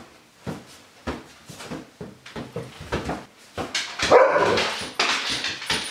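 A hand batting rubber balloons, a light tap about every half second, with a louder, drawn-out call-like sound about four seconds in.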